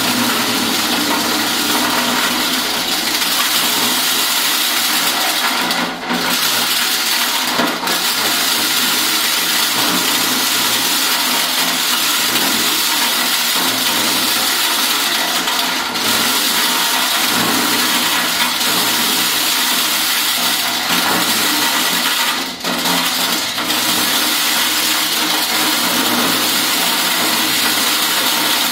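Mini corn sheller running: a loud, steady rushing, rattling noise with a faint machine hum beneath it, dipping briefly a few times.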